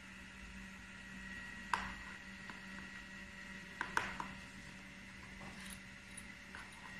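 Small metal dog-tag pendants and their chains clicking and clinking as they are handled and set down on a cutting mat: one sharp click about two seconds in, a quick cluster of clicks around four seconds, and a few faint ticks later. A steady electrical hum with a faint high whine runs underneath.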